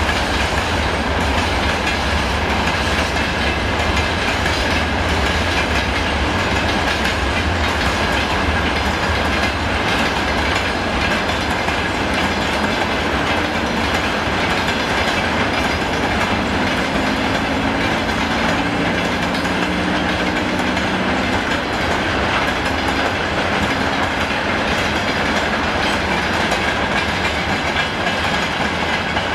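A train running past on the rails, its wheels clacking steadily over the rail joints.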